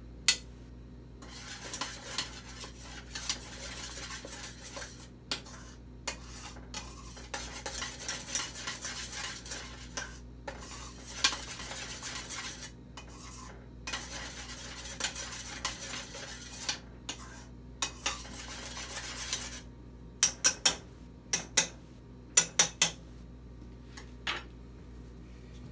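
A utensil stirring a heating sugar, Jell-O and corn syrup mixture in an enamel pot, scraping around the pot in long spells with an occasional sharp clink. About twenty seconds in, a quick run of loud clinks against the pot.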